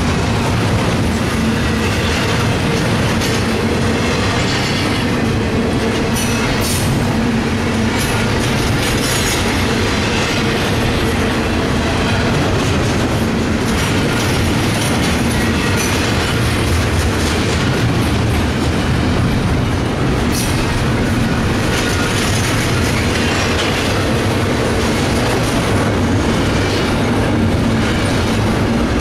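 Loaded double-stack intermodal container cars rolling past close by: a loud, steady rumble and clatter of steel wheels on the rails, with a few brief high-pitched wheel squeals.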